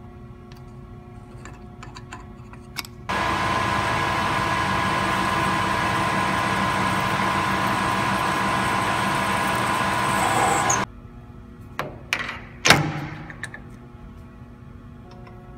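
Metal lathe running while a centre drill in the tailstock chuck cuts into the end of a 17-4 stainless steel shaft. A loud, steady whir starts abruptly about three seconds in and cuts off suddenly some eight seconds later. A few sharp metallic knocks follow, the loudest with a falling ring.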